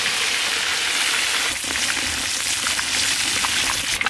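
Whole rohu fish deep-frying in hot oil in a karai: a steady sizzle, with a few faint crackles in the second half.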